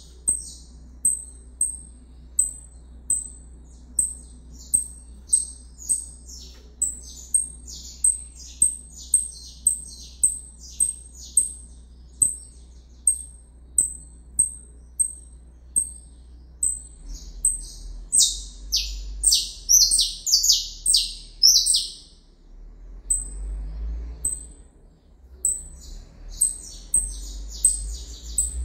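Caged canary calling and singing: sharp high chirps repeated about twice a second, broken by short bursts of song. The loudest run of song comes about two-thirds of the way through.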